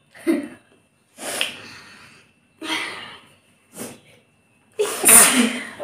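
Several people sneezing, about five sneezes in quick succession, the last one near the end the loudest.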